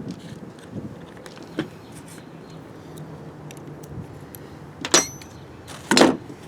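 Metal tools being handled on a workbench: a few light clicks, then a sharp metallic clink with a brief ring about five seconds in, followed a second later by a louder short scrape or rustle.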